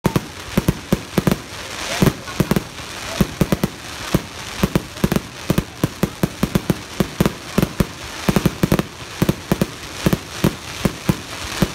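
Fireworks display going off: a rapid, irregular string of sharp bangs from aerial bursts, several a second, over a steady crackling hiss.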